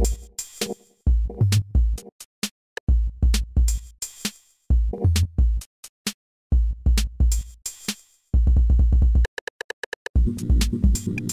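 Synthesized electronic music with a drum-machine beat: heavy kick drums and sharp hi-hat clicks in short phrases broken by silent gaps. About eight seconds in there is a rapid run of kicks, then a brief high pulsing tone, and about ten seconds in sustained synth notes join under the beat.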